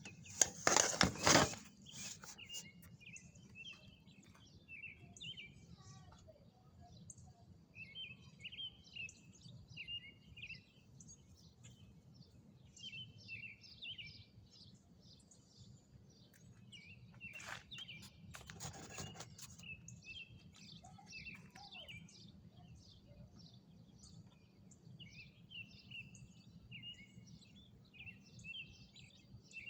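Small birds chirping and singing in short repeated phrases over a low steady hum. A short, loud burst of noise comes about a second in, and weaker ones come around two-thirds of the way through.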